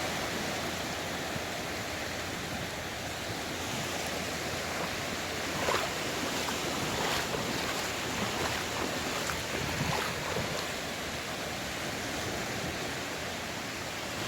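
Sea waves washing on the shore: a steady rushing wash of water, with a few short louder splashes.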